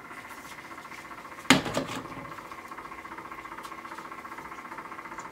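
Small electric cup-turner motor running steadily as it rotates a mug, with one sharp knock about one and a half seconds in.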